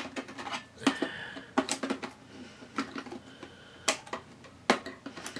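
Sharp plastic and metal clicks and knocks, about one a second, as a small circuit board and its ribbon cable are handled and fitted into an opened Asus F555L laptop chassis.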